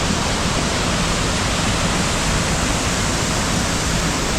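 Waterfall, swollen after recent rain, pouring in a loud, steady rush of falling water close by.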